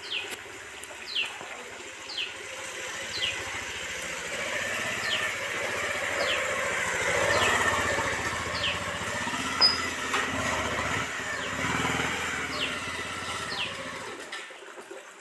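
Motorcycle engine running as the bike moves slowly past, growing louder toward the middle and fading near the end. A bird repeats a short falling chirp about once a second.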